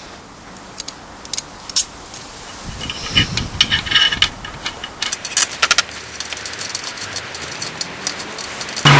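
Light metallic clicks and clinks of small tools and engine parts being handled, a cluster of sharper strikes in the middle. A louder rushing noise starts abruptly just before the end.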